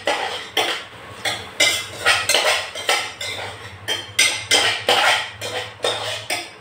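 A utensil scraping and knocking against a small saucepan, about two to three strokes a second, as chopped tomatoes and onions are stirred and fried, with a steady low hum underneath.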